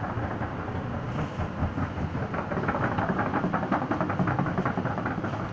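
Quick rattling clatter, about four or five knocks a second, building from about two seconds in, over a steady low hum: the noise of moving with a camera along a tiled supermarket aisle.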